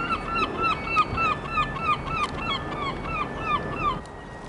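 Door-closing warning of a Merseyrail Class 777 electric train: a rapid, even run of short electronic chirps, about four a second, each gliding up and back down, stopping about four seconds in. A faint steady high whine runs beneath.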